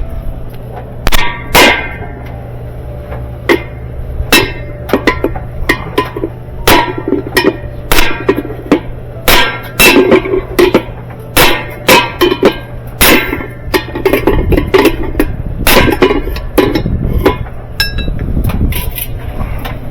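Irregular series of hammer blows on metal, about one or two a second, each ringing briefly, over a steady low hum: knocking loose the rusted drive block and hub parts of a top-loading washer's spin basket.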